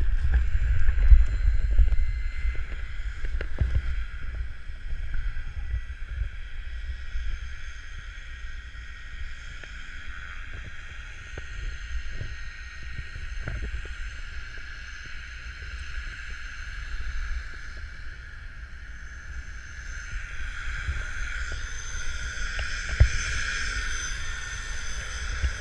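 Wind buffeting a helmet camera's microphone as a skydiver comes in under the canopy and lands, with heavy thumps and rustling about a second or two in, then fainter rustling and handling clicks as the parachute is gathered. A steady engine drone runs underneath and grows louder over the last few seconds.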